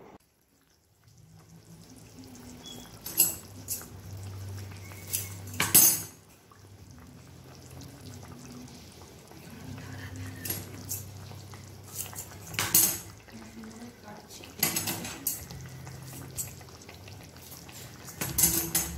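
Metal utensil clinking and scraping against a wok of curry, sharp knocks every few seconds, over a low hum.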